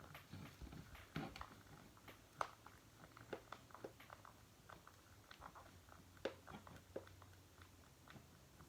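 Faint, irregular clicks and taps from hands handling a battery-operated plush pony toy while its sound box stays silent.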